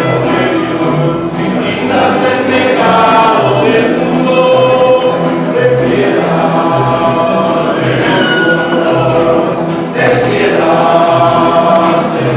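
Church choir singing a hymn, with instrumental accompaniment and long held notes.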